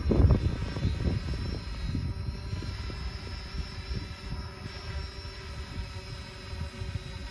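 Quadcopter drone flying at a distance: a faint, steady propeller whine. Wind buffets the microphone, in gusts that are strongest in the first second.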